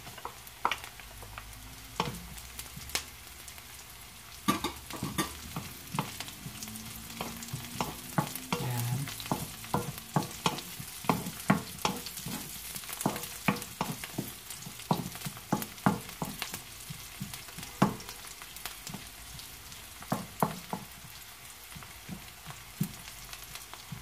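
Onions and freshly added garlic sizzling in hot olive oil in a wok, with a steady frying hiss. A wooden spatula stirs them, knocking and scraping on the pan in frequent short clicks.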